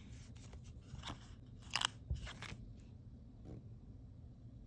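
Sheets of plastic sticker and holographic film being handled and stickers peeled: a few separate crinkles and crackles, the loudest just under two seconds in.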